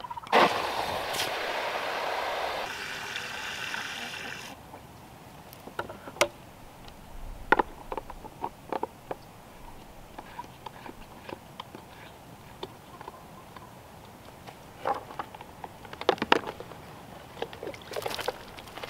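Water from a garden hose rushing into a plastic poultry waterer's tank, its sound changing partway through as the tank fills, then cutting off suddenly about four and a half seconds in. After that come scattered clicks and knocks of the plastic waterer being handled and closed.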